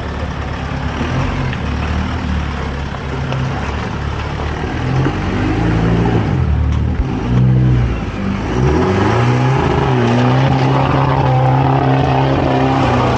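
Car engine under load, its revs rising and falling several times, then climbing and holding steady at a higher pitch for the last few seconds.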